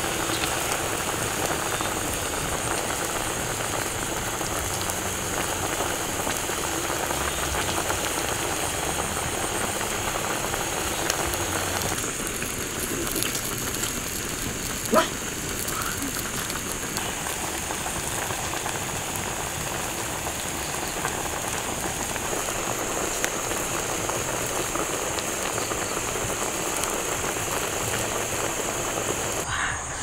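Chickens simmering in sauce in a wok over a wood fire: a steady bubbling, spitting hiss, with a thin high steady whine behind it. A single sharp pop comes about halfway through.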